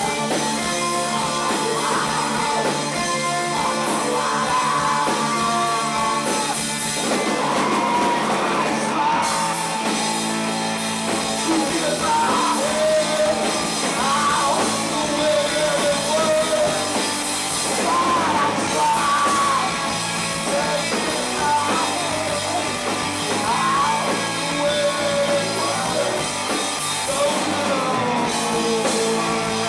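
Live rock band playing loud and without a break: electric guitar, bass guitar and drum kit, with a voice singing over them.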